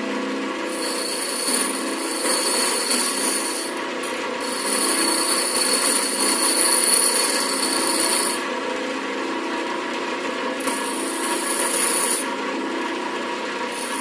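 Motor-driven wire wheel running steadily, with a headless bolt pressed against it in spells of a few seconds, the bristles scrubbing the metal clean.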